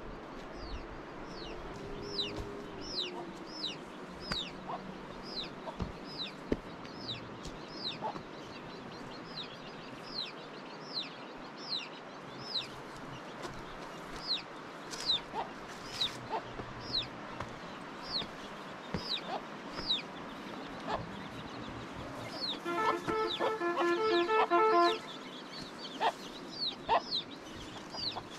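Domestic chickens: a chick peeping steadily, about twice a second, each peep a short, high, falling note. Near the end an adult chicken joins in with a loud, fast run of pulsed calls.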